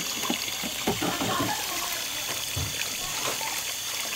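Tap water running steadily and splashing, as fish is washed during cleaning.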